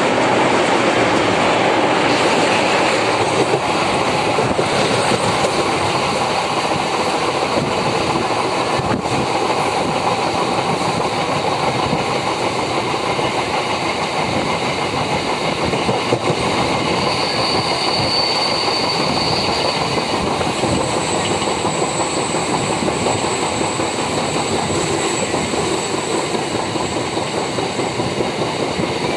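A MEMU electric passenger train running at speed, heard from an open window: a steady rush of wheels on rail and wind with a few clicks from rail joints. A faint high whine comes in partway through and again for much of the second half.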